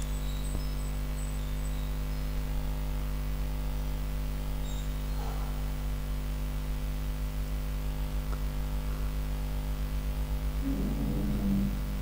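Steady electrical mains hum with a stack of overtones, continuous and unchanging.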